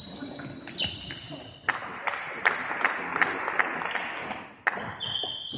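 Scattered sharp ticks of a table tennis ball, with high squeaks of players' shoes on the sports hall floor near the start and end. A steady noisy hiss runs through the middle seconds.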